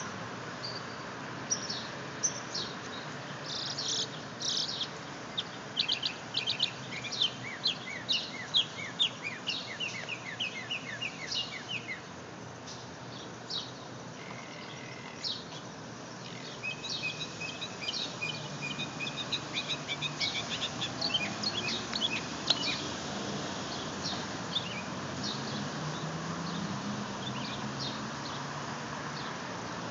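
Northern mockingbird singing: runs of rapid, high notes, each phrase repeated several times before it switches to another, with a lull in the middle.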